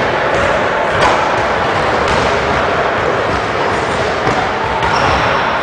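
A basketball thudding once on a hardwood gym floor, about a second in, over a steady, noisy echo of the gym.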